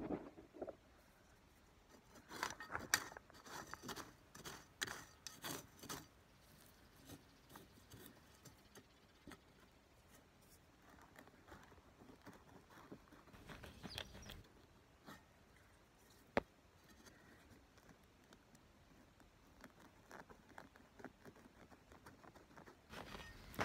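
Metal hand trowel scraping and digging into dry, stony soil to loosen a garlic bulb: scattered clusters of faint scrapes and clicks, with one sharp click about two-thirds of the way through and quiet stretches between.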